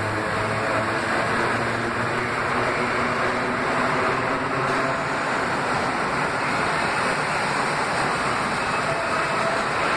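Vintage IRT Lo-V subway train running through the station without stopping: a steady, loud rumble of the cars passing close by.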